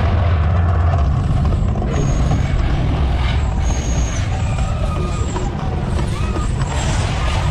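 Mirage volcano attraction erupting: a loud, deep, steady rumble under the rushing whoosh of its gas flames.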